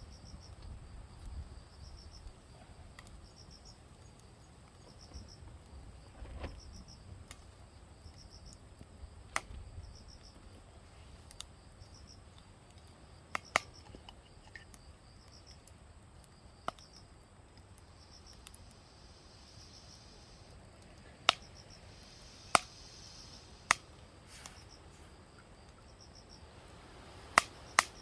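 Insects chirping faintly in a steady, evenly repeating pulse, with a few sharp pops from a crackling wood campfire, several close together in the second half.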